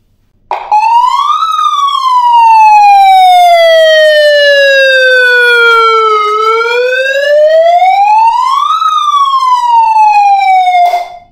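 MX AM 21SD+ handheld megaphone sounding its built-in electronic siren through the horn, quite loud. The wailing tone rises quickly, falls slowly for about five seconds, rises again, then falls and cuts off near the end.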